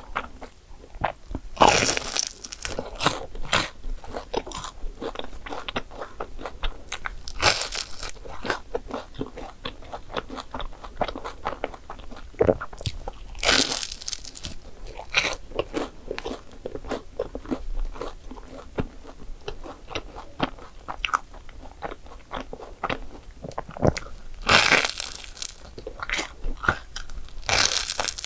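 A person biting into and chewing crisp croissant waffles (croffles): dense crackly chewing with a handful of louder crunching bites spread through.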